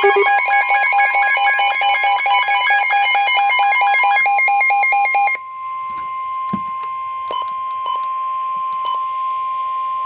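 NOAA Weather Radio warning alarm tone: one steady, loud tone near 1 kHz that signals an imminent warning message. For the first five seconds it is overlaid by a rapid warbling electronic alarm beep. After the beeping stops suddenly, the tone goes on over radio hiss with a few clicks, and it cuts off at the end.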